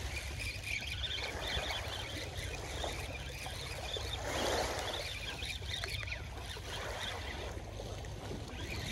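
Small waves washing on a sandy shore, with wind rumbling on the microphone; the wash swells briefly about halfway through.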